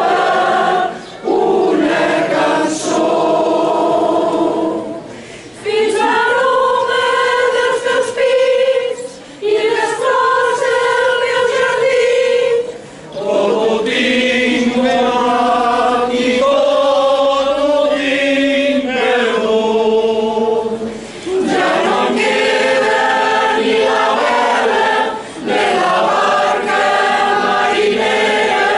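Mixed choir of men and women singing a Catalan caramelles song unaccompanied, in phrases of long held notes with short breaks between them.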